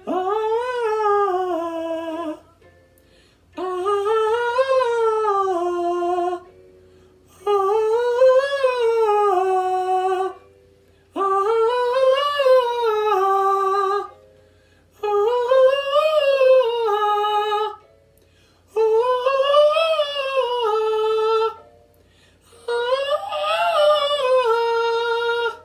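A singer's voice running a vocal warm-up scale seven times, each phrase rising and then falling in pitch, with short pauses between and each phrase starting a step higher than the last.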